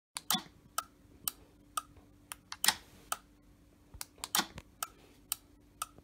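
Sharp mechanical clicks of a remote-operated van deadbolt being worked, about two a second, with three longer, louder clunks among them, over a faint steady hum.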